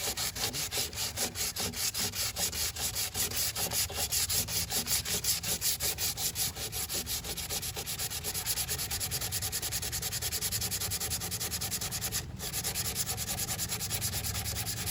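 Body filler (Bondo) on a car panel being sanded by hand with sandpaper: quick, even back-and-forth scraping strokes, about four a second, with a brief pause about 12 seconds in. The filler is being shaped and smoothed to the body's curve.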